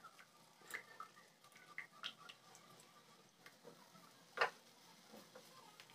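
Silicone spatula stirring yogurt gravy in a kadai as it heats toward a boil: faint, irregular ticks and soft scrapes against the pan, with one sharper click about four and a half seconds in.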